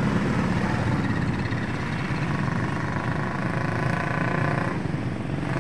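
A motor vehicle engine running steadily, with a higher steady tone over it from about a second in until near the end.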